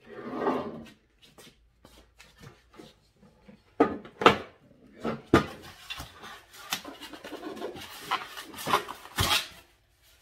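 Unpacking handling noise: the plastic base and steel frame of a Ryobi table saw knocking several times as it is tipped up onto its side, then foam packing rubbing and scraping against the saw as it is worked off the motor.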